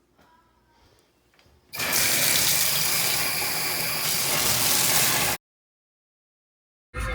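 Water running hard from a tap, starting about two seconds in and cutting off abruptly after about three and a half seconds. Music begins near the end.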